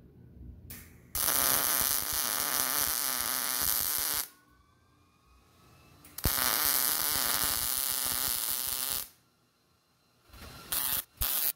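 Millermatic 211 MIG welder's arc crackling as a bracket is welded onto a mower deck in short sections: two runs of about three seconds each with a pause between, then a few brief tacks near the end.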